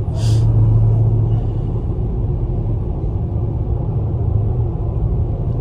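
Steady low drone of engine and road noise inside a Dodge Charger Scat Pack's cabin while cruising on the highway, with a brief rustle at the very start.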